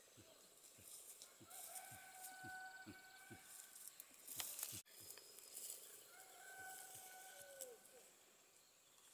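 Faint forest ambience: an animal's long, steady whistled call, heard twice, over a string of short, low, falling chirps. A brief rustle comes about halfway through.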